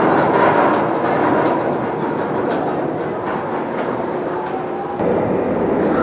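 Steel inverted roller coaster train running along its track: a loud, steady rumble of wheels on steel rails as the train passes close by. The sound changes abruptly about five seconds in.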